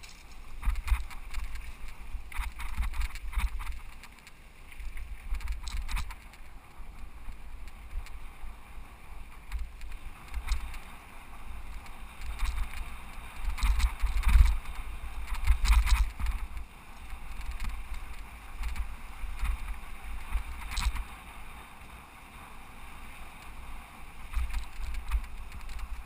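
Mountain bike riding over a dirt singletrack: wind buffets the rider's camera microphone in uneven rumbles, over the hiss of tyres on dirt and the bike's rattles and clicks over bumps.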